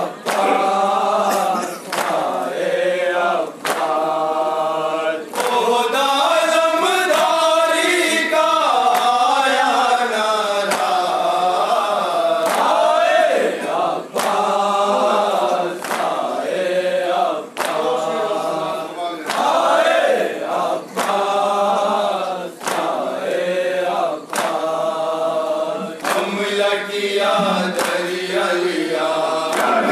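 Men chanting a nauha, a Shia lament, led at a microphone and answered by the group, with sharp open-hand chest slaps of matam keeping a steady beat about once a second.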